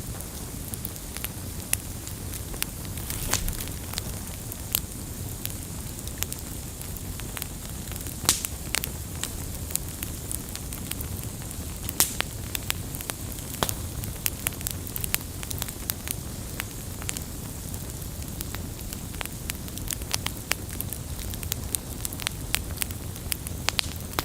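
Campfire burning: a steady low rumble of flames with irregular sharp crackles and pops of burning wood, a few louder snaps standing out.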